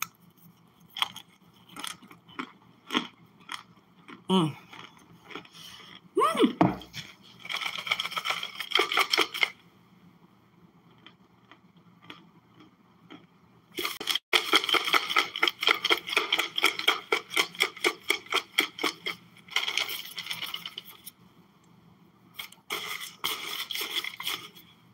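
Close-up crunching and chewing of solid, hardened cornstarch, in runs of quick rhythmic crunches with short pauses between.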